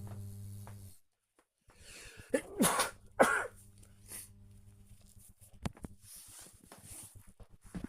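A person's natural sneeze, picked up by a smartwatch microphone: two loud, sharp bursts about half a second apart, followed by a few small clicks and soft breath noise.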